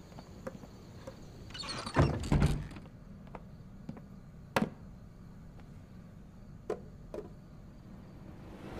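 Wooden knocks as a wooden food box is handled: a brief rustle and two loud thunks about two seconds in, a single sharp knock a couple of seconds later as the box is set down on a table, then two light clicks near the end as its lid is lifted.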